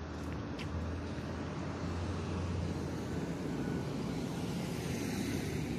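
Steady motor-vehicle noise: a low engine hum with road noise, continuous and unchanging.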